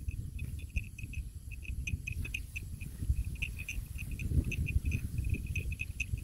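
Insects chirping in short pulses, several a second, at one high pitch, over a steady low rumbling noise.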